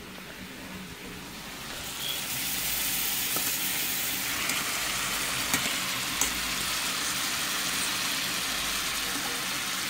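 Steak and onion rings frying in butter in a pan, sizzling steadily. The sizzle comes up about two seconds in and then holds, with a couple of small pops.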